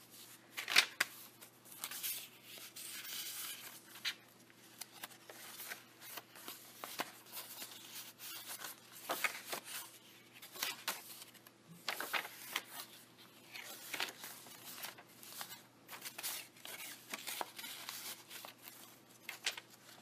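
Pages of a handmade paper junk journal being turned and handled: irregular paper rustling and crinkling with sharp crackles of stiff, crumpled pages, the loudest about a second in.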